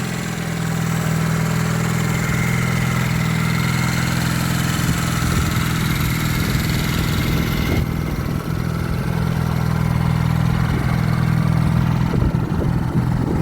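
Honda CD175's parallel-twin engine idling steadily and evenly, running properly after repair.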